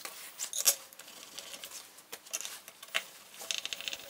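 Screwdriver driving the neck screws into a Strat-type guitar: scattered small metal clicks and scrapes, with a quick run of ticks about three and a half seconds in.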